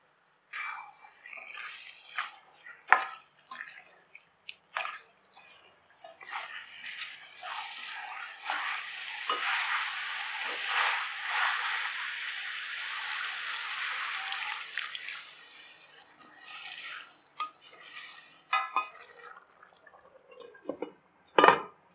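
Spatula stirring chicken pieces through masala in a metal kadai, with scattered clicks and scrapes against the pan and a stretch of sizzling in the middle. Near the end a glass lid is set on the pan with a single loud clunk.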